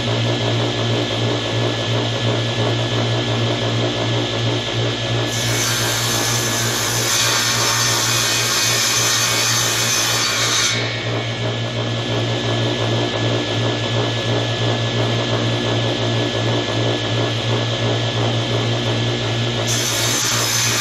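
Shop-built table saw running with a steady low hum, its blade cutting through 15 mm MDF board. A louder, higher cutting noise comes from about five seconds in to about eleven, and starts again near the end.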